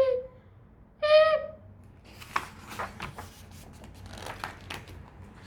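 A voice making short, high "hic!" hiccup sounds, twice about a second apart, each ending with a drop in pitch. These are followed by a few seconds of faint rustling with light clicks.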